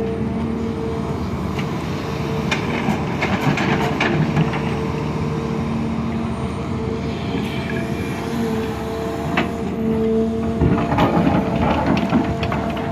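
Sumitomo SH350LC hydraulic excavator working, its engine and hydraulics running with a steady whine. Clanks and knocks sound a few times, mostly in the first third and near the end.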